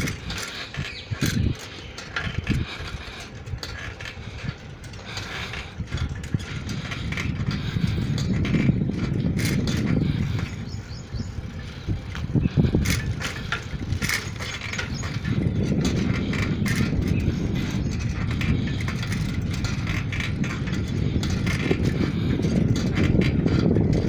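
Bicycle ridden along a concrete road: a low, swelling rumble of tyres and wind on the microphone, with scattered clicks and rattles from the bike's chain and mechanism throughout.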